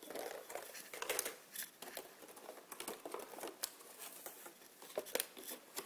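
Clear plastic blister trays of miniature figures being handled and shifted, crinkling and crackling in a dense run of irregular clicks, with a few sharper snaps about a second in and near the end.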